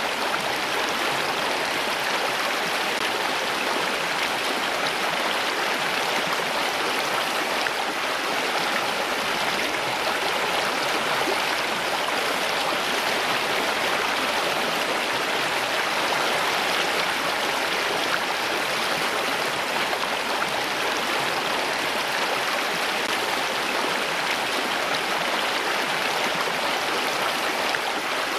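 Flowing water running steadily: an even, unbroken rush with no breaks or single drops standing out.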